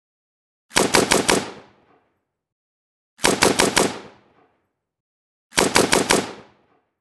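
AK-47 assault rifle firing in 7.62×39mm on full auto: three short bursts of about five shots each, a couple of seconds apart, each trailing off in a fading echo.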